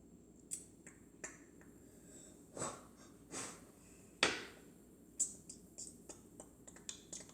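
Scattered small clicks and knocks of kitchen items being handled, the loudest about four seconds in, coming quicker over the last two seconds.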